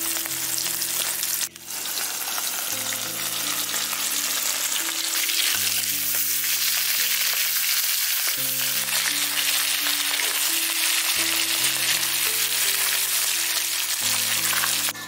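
Fish pieces sizzling as they shallow-fry in hot mustard oil in a kadhai, a dense steady crackle that drops out for a moment about a second and a half in. Soft background music holds low chords underneath.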